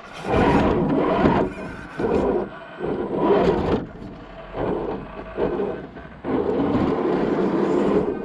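Axial SCX10 II RC crawler's electric motor and gearbox running in short stop-start bursts, then steadily from about six seconds in.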